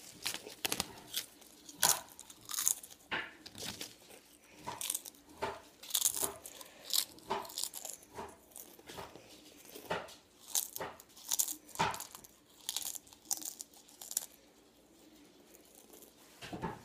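Crunchy spicy tortilla chips being bitten and chewed: a rapid series of crisp crunches that thins out after about fourteen seconds, with one last crunch near the end.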